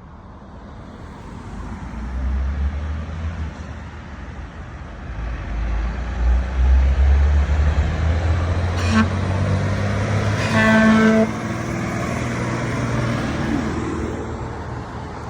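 A box truck's engine rumbles louder as it comes up and passes. It gives a brief toot of the horn and then a honk of under a second, a bit quiet for a truck horn.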